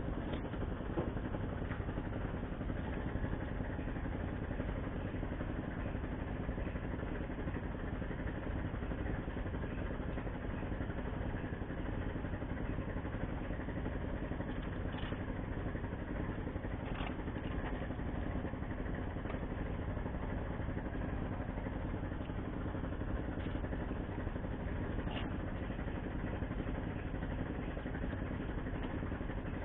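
Steady drone of an idling engine, with a few faint clicks.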